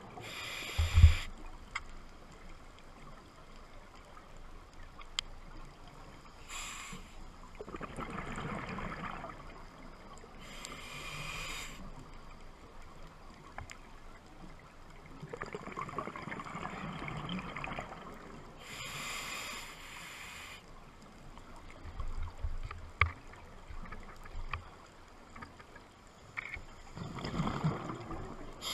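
A scuba diver breathing through a regulator underwater: slow breaths several seconds apart, a hissing inhale through the demand valve and a gurgling rush of exhaled bubbles in turn, over a low underwater hush.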